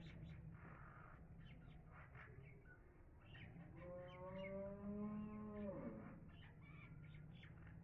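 A cow mooing once: one long call of about two and a half seconds that drops in pitch as it ends, amid faint scattered clicks.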